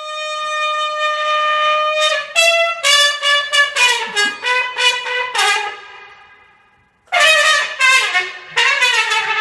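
A brass-like horn blown: one held note for about two seconds, then a run of short blasts that each slide down in pitch. There is a brief pause about two-thirds of the way in, then more falling blasts.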